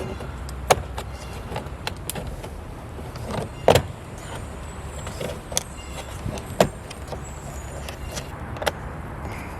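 Plastic interior door trim of a BMW F10 being pried off the door: irregular sharp clicks and snaps of trim clips and panel edges working loose, the loudest about a second in, near four seconds and near seven seconds.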